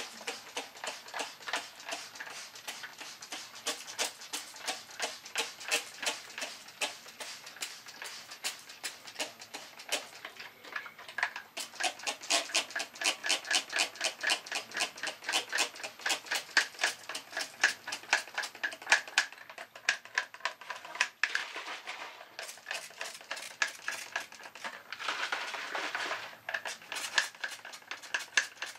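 Hand trigger spray bottle spritzing Woodland Scenics Scenic Cement in quick repeated squeezes, about three to four a second, each a short hiss of spray, with a couple of brief steadier hisses in the second half. The glue is soaking the ballast and ground cover.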